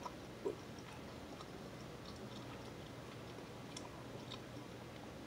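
Faint mouth sounds of sipping coffee from a mug: scattered small clicks, with one brief louder sound about half a second in.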